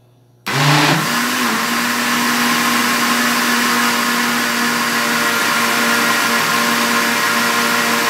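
Countertop blender switched on about half a second in: the motor spins up with a quick rising whine, then runs steadily at speed, blending a liquid soap mixture.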